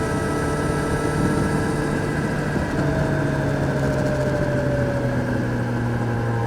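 Kawasaki Z900's inline-four engine running steadily, its note easing down a little about three seconds in and then holding.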